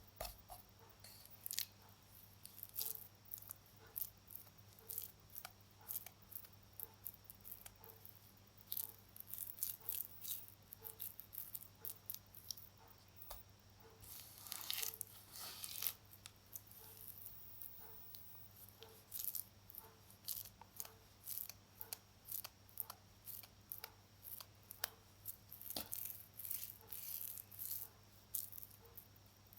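Baking soda being crumbled: many short, crisp crackles and crunches in quick succession, with a denser run of crunching about halfway through.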